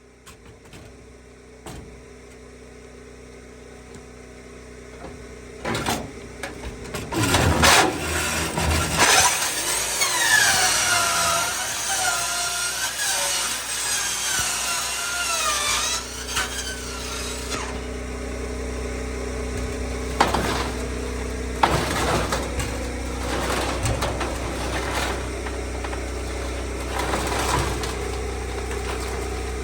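Mini excavator's diesel engine running steadily. Over it come knocks, and from about 9 to 16 s a long wavering metal-on-metal screech of something being scraped or dragged.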